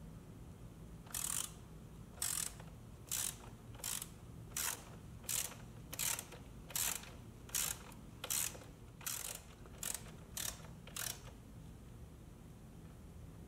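Socket ratchet clicking through about fourteen short strokes, roughly one every three quarters of a second, as it loosens the fastener on the motorcycle's upper rear-shock mount. The clicking stops about eleven seconds in.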